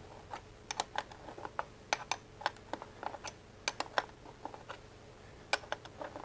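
Irregular light metallic clicks of a wrench working the clutch cable adjuster on a Harley-Davidson Pan America, as the adjuster is turned in to slacken the clutch cable.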